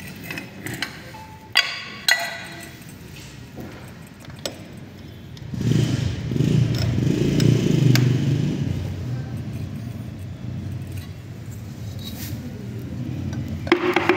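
A few sharp metal clinks of engine parts and tools being handled. From about five and a half seconds a motor vehicle's engine rumbles nearby, loudest a couple of seconds later, then slowly fades. More metal clinks come as the magneto side cover is fitted near the end.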